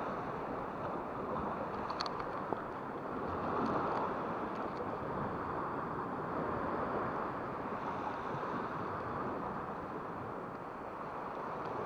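Steady wash of small sea waves against a rocky shore, with a faint click about two seconds in.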